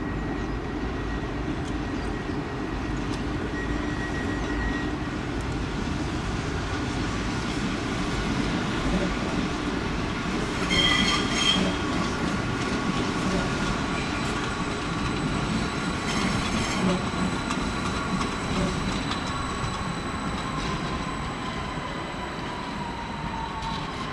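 WESTbahn Stadler KISS double-deck electric multiple unit pulling out and moving off: a steady rumble with a thin whining tone from the drive that slides lower near the end, and two brief wheel squeals, about eleven and sixteen seconds in. The sound eases off toward the end as the train draws away.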